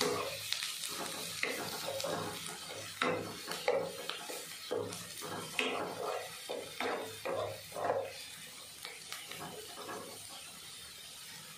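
A spatula stirring and scraping sliced onions and whole spices frying in oil in a nonstick kadai. Irregular scrapes and knocks against the pan sit over a faint sizzle, as the onions are fried toward golden brown and kept moving so they don't burn.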